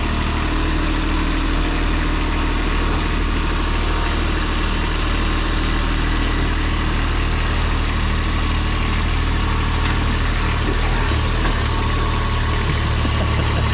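Ditch Witch mini skid steer's engine running steadily at an even speed.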